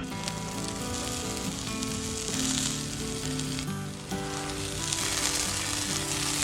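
Food sizzling as it fries in a hot pan, a steady hiss that swells twice, with background music underneath.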